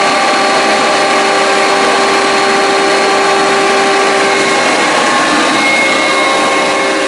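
A hydraulic machine test rig running steadily: an even, loud rushing noise with steady whining tones, the whine shifting to a different pitch about five seconds in.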